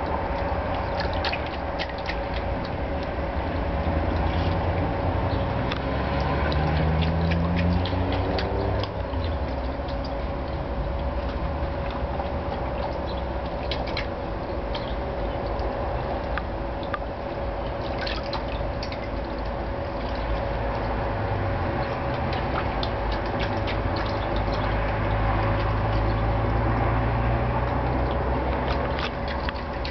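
An Irish Terrier splashes and dunks its muzzle in a plastic basin of water, with scattered splashes and drips as it lifts its wet head, while bobbing for treats. Behind it a steady motor hum runs throughout and rises in pitch briefly, about six to nine seconds in.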